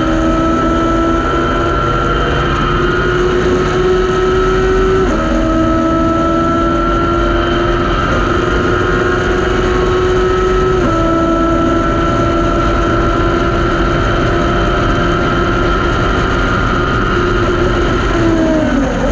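Thunder Roadster race car engine at full throttle on a straight, its pitch climbing slowly and stepping down sharply with upshifts about 5 and 11 seconds in. Near the end the revs fall and waver as the car slows for a corner.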